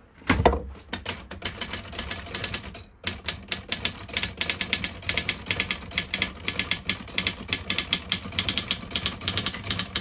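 Facit TP1 manual portable typewriter being typed on fast: a rapid, uneven run of key and typebar strikes. There is a thump just at the start and a brief pause about three seconds in.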